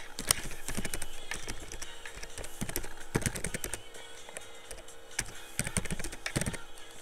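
Computer keyboard being typed on: quick clusters of key clicks with short pauses between words.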